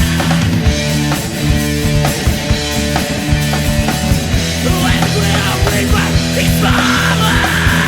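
Post-hardcore rock band playing: distorted electric guitars and bass holding heavy chords over a busy drum kit.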